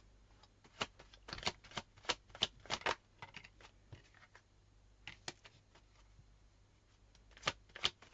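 Tarot cards being shuffled and handled: quick runs of crisp card snaps and clicks. There is a dense run in the first few seconds, a few more about five seconds in, and another run near the end.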